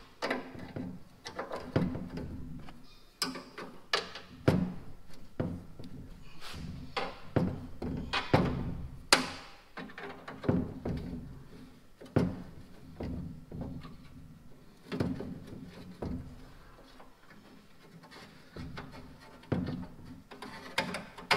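Socket ratchet working stubborn, rusty bolts on a tractor radiator's sheet-metal fan shroud: irregular clicks and metal knocks as the wrench is swung and repositioned.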